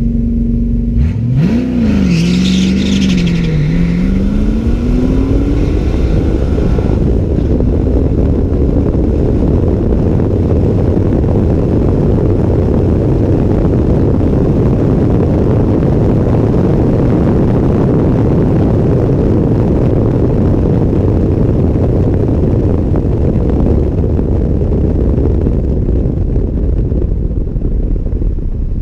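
Car engine idling briefly, then launching hard: its note climbs, drops twice as it shifts up, and climbs again. From about seven seconds in, heavy wind rush on the side-mounted microphone and road noise bury the engine.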